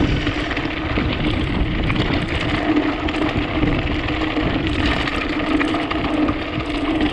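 Mountain bike rolling down a dirt trail, with wind rushing over the action-camera microphone, a steady low hum and the rattle of tyres on the ground.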